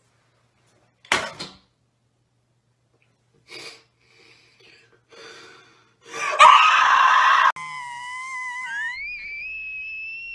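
A young woman's loud scream lasting about a second, some six seconds in, after a few soft short sounds. It is followed by a steady high tone that slides up in pitch and holds until near the end.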